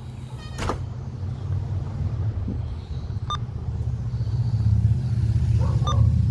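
A steady low rumble that grows louder, with a short high beep about halfway through and another brief tone near the end.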